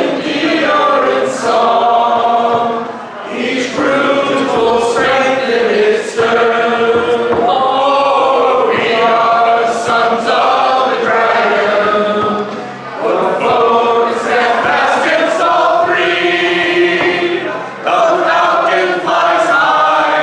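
Two women and a man singing an unaccompanied song together in long phrases, with short breaks between them.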